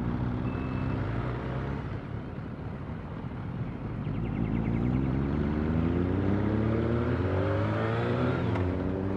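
Motorcycle engine pulling away and accelerating: a low rumble, then the engine note rises steadily from about four seconds in and drops sharply near the end.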